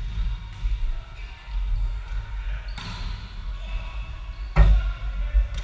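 Volleyball being played in a gym: a couple of sharp smacks of hands striking the ball, the loudest about four and a half seconds in, ringing in the hall over a steady low rumble.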